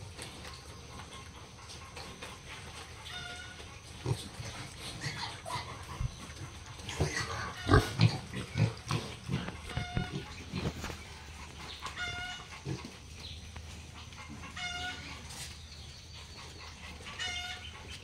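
Pigs grunting and snuffling, busiest and loudest from about four to eleven seconds in, with a short high-pitched call repeating about every two and a half seconds in the background.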